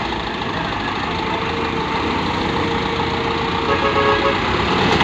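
Dump truck diesel engines running steadily, with a vehicle horn sounding, loudest in a brief toot about four seconds in.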